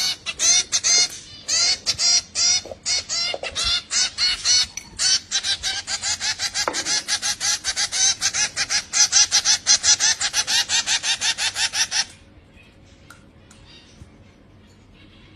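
Birds calling in a fast, unbroken series of short high chirps, about five a second, stopping suddenly about twelve seconds in.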